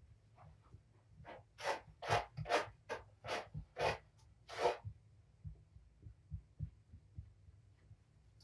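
Cat claws scratching, about eight quick rasping strokes roughly two a second, then stopping, over a steady low hum.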